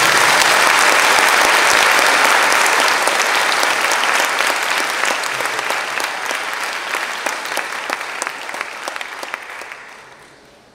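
An audience applauding, full and dense at first, then thinning into scattered separate claps and dying away near the end.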